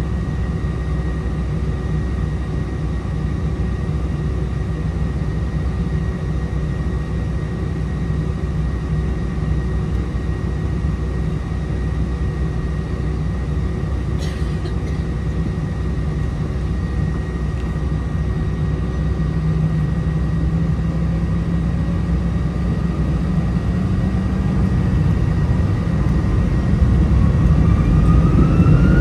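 Airbus A319's IAE V2500 turbofan engines, heard from inside the cabin, running at idle with a steady hum of several layered tones. In the last few seconds they spool up, a whine rising in pitch and growing louder as thrust is increased.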